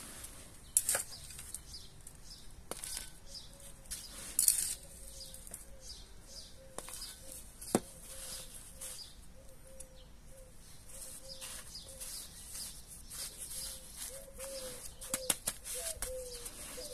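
Gloved hands working gritty potting mix and perlite around a succulent in a plastic pot: irregular scratching, crunching and rustling, with a few sharper taps and clicks.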